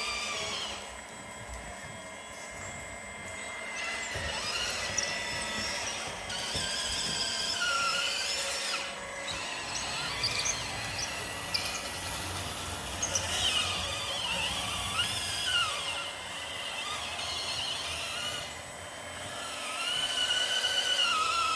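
Small electric motors and hydraulic pump of radio-controlled scale construction models whining, the pitch rising and falling as they speed up and slow down, with a few sharp ticks.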